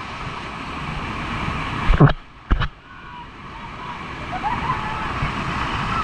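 Heavy rush of muddy floodwater pouring down a swollen waterfall and crashing onto people in an inner tube right at the camera. Two loud thumps about two seconds in, half a second apart, each followed by a brief muffled dip.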